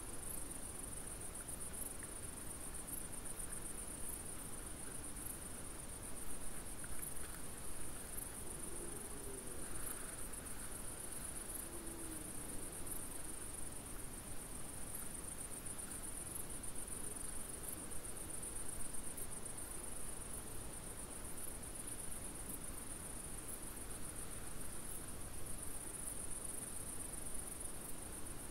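Insects stridulating in the grass: a steady high-pitched chirring with faint regular pulses.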